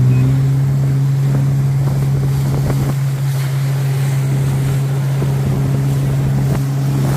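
Jet ski engine running at steady revs, a constant even hum with wind noise over it.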